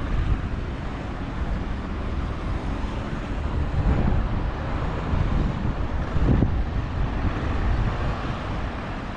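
Road traffic on a wide multi-lane road, cars passing steadily with a low rumble, and wind buffeting the microphone. One vehicle swells louder about six seconds in.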